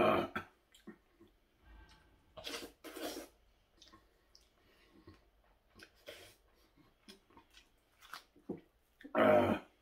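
Jajangmyeon noodles being slurped and chewed: a loud slurp at the start and two more around two and a half to three seconds in, small chewing clicks between, and another loud mouth noise near the end.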